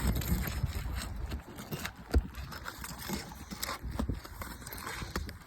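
An asphalt 3-tab shingle being pried loose from its sealant strip. Irregular scraping and crackling with scattered clicks and knocks, the sharpest knock about two seconds in.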